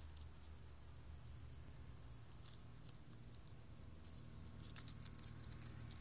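Quiet background with a low steady rumble and light, dry clicks and rustles, a few about two and a half seconds in and a quick run of them between about four and five and a half seconds.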